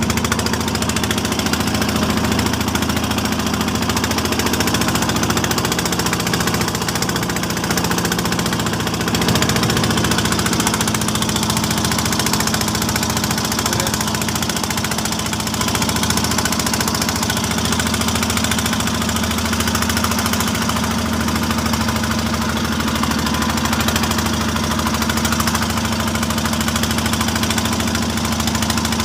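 The engine of a small wooden outrigger fishing boat running steadily under way.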